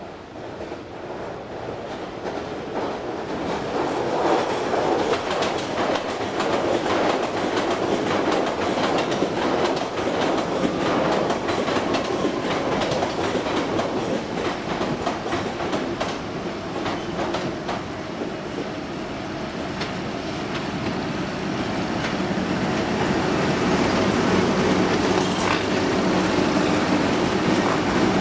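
Class 90 electric locomotive hauling a train of flat freight wagons over pointwork, growing louder over the first few seconds and staying loud as it passes close, its wheels clattering over the rail joints and points.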